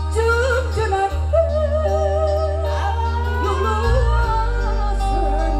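Woman singing a wavering, ornamented melody into a microphone over a live dangdut koplo band. Behind her are held steady notes and a loud, deep bass that changes about four seconds in.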